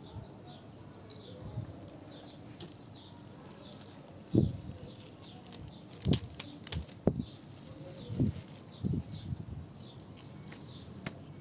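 Dull low knocks and a few light clicks from handling, as a wristwatch on a nylon strap is turned over in the hand. Under them, small birds chirp over and over in the background, in short falling high notes.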